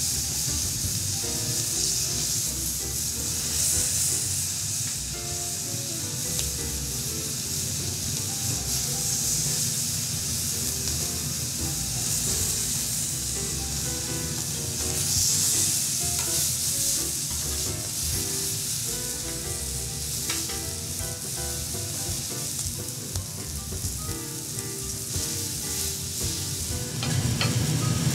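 Steak and vegetables sizzling steadily as they sear on a hot flat iron griddle (teppan).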